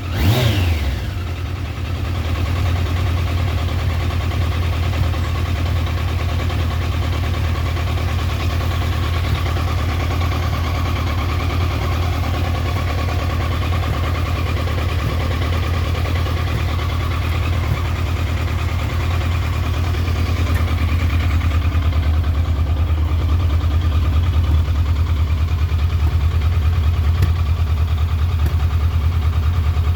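Triumph Trophy 1200 motorcycle engine dropping back from a short rev in the first second, then idling with a steady low pulse. The idle is rough.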